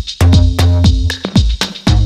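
Electronic dance music with a steady beat and heavy bass, with the bass sliding down in pitch on several notes.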